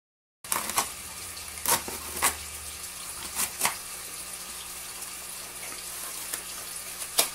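A cardboard mailing box being handled on a table: a handful of sharp knocks and taps, most of them in the first four seconds and one near the end. Under them runs a steady rush of circulating aquarium water with a low hum.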